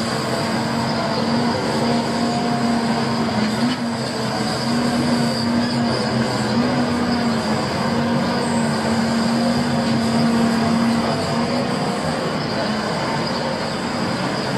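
Volvo FH16 750 log truck's 16-litre straight-six engine running to power its loading crane's hydraulics while the crane unloads logs. There is a steady hum and a thin high whine, the hum shifting slightly in pitch a few times as the crane works.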